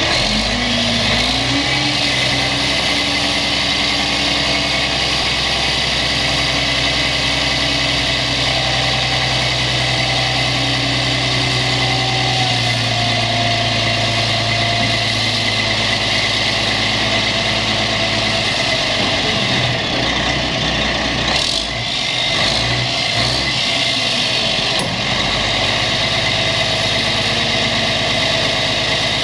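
Kenworth T800 dump truck's diesel engine running steadily while its hydraulic hoist raises the dump body. The engine note rises about a second in and then holds. There is a brief knock about two-thirds of the way through.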